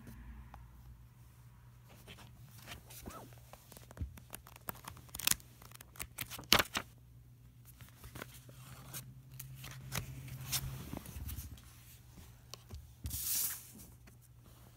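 Pages of a paper journal being riffled and flipped by hand: a run of quick papery flicks and taps, then a longer rustle near the end.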